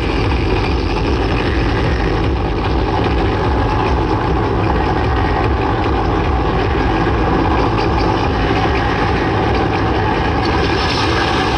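Loud electronic dance music from a DJ set playing over an outdoor sound system, a steady dense wash with heavy bass.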